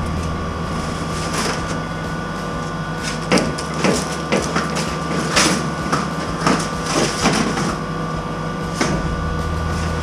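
Old sheet-metal smoke pipe being handled and pulled apart: irregular metal clanks and crunches, several a second, over a steady mechanical hum.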